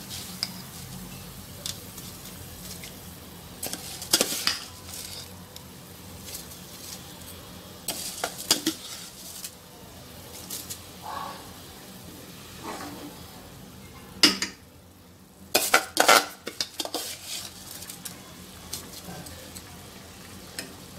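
Tomato juice boiling hard in an open aluminium pressure cooker, with a steady bubbling sizzle. A metal spoon knocks and scrapes against the pot every few seconds, most busily about two-thirds of the way through, as the added rice is stirred in.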